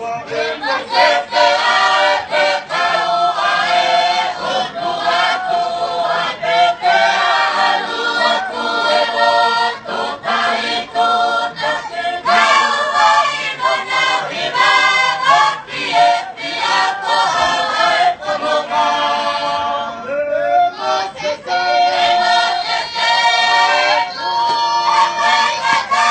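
A mixed group of women and men singing a Tongan hymn together.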